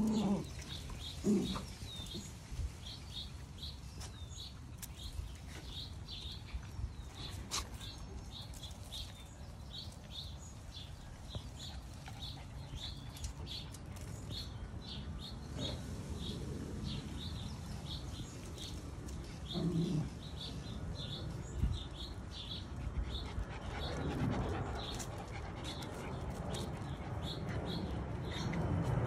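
Puppies playing, with a few short puppy vocalizations near the start and again later. Behind them a small bird chirps steadily, two or three short high chirps a second.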